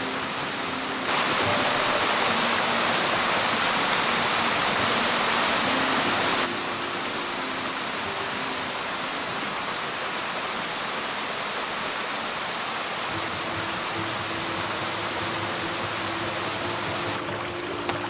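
Mountain stream rushing steadily, with soft background music underneath. The water is louder for about five seconds near the start and drops back abruptly.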